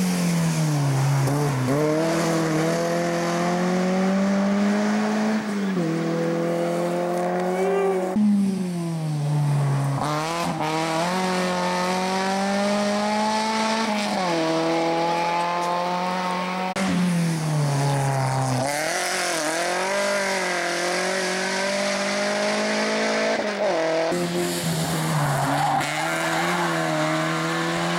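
Rally cars driven flat out one after another, each engine revving hard and climbing through the gears, with the pitch dropping sharply at every upshift.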